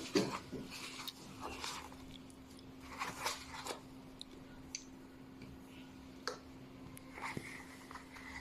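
Scattered clicks, taps and brief rustling of something being handled, at irregular moments, over a steady low hum.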